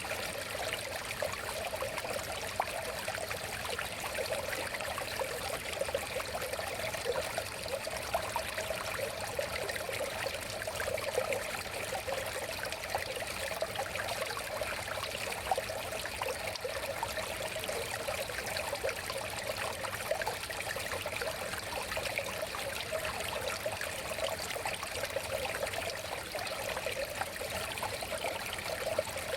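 River water flowing steadily, a continuous babbling rush with small splashes and trickles.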